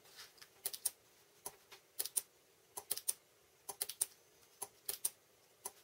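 Small push button being pressed and released repeatedly, with the timer board's relay switching: about a dozen sharp clicks, mostly in quick groups of two or three.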